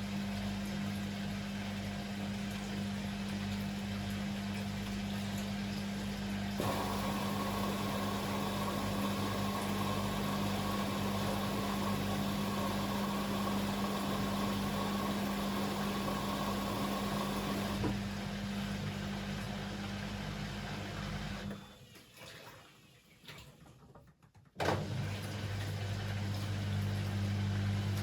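Beko WML 71433 NP washing machine running mid-cycle with a steady low hum. A louder rushing noise is added for about eleven seconds. Near the end the machine falls almost silent for about three seconds, then starts humming again with a sharp click.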